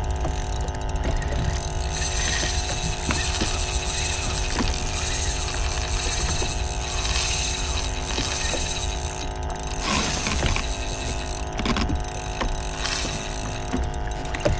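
Sea-Doo jet ski engine idling, a steady hum under a haze of wind and water noise, with a couple of brief knocks about ten seconds in.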